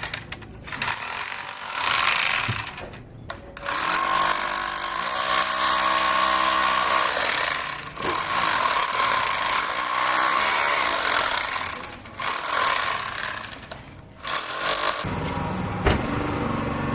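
Power tool running in repeated bursts of a few seconds, with short pauses between them. Near the end a steadier, lower motor sound takes over.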